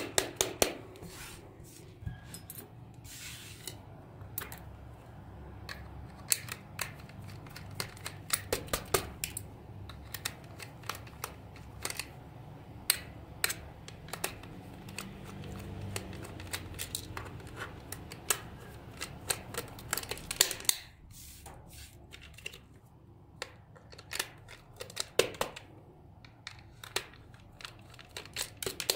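Hard plastic toy shell being handled and worked with a small tool: irregular clicks, taps and light scrapes of plastic on plastic and metal on plastic.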